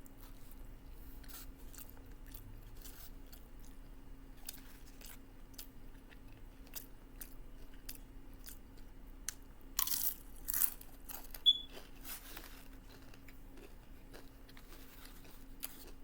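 A person chewing crunchy nacho cheese Doritos with taco salad, with steady small crackles and a few louder crunching bites about ten seconds in, followed by one sharp tick.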